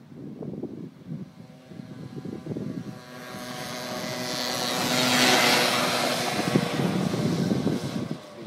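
The Forshaga Shopper microcar's Peugeot Vivacity scooter engine running at high revs as the car drives by. It grows louder over the first few seconds, is loudest about five seconds in, then fades as the car moves away.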